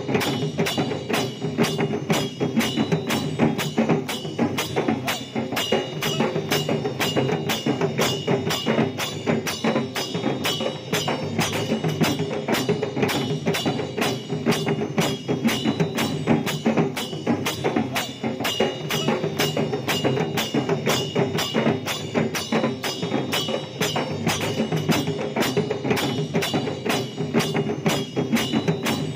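Madal drums playing a fast, steady dance beat, about four strikes a second, with other percussion.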